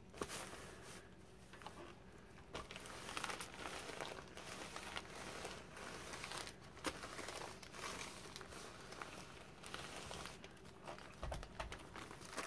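Faint, irregular rustling and swishing of paper as a hand iron is slid back and forth over a paper-covered sheet of fabric, pressing it flat, with a few light clicks.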